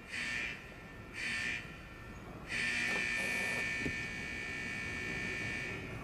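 An electric buzzer sounds two short buzzes about a second apart, then a continuous buzz from about two and a half seconds in.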